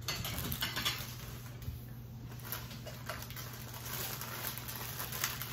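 Quiet room tone with a steady low hum and faint, scattered small taps and rustles.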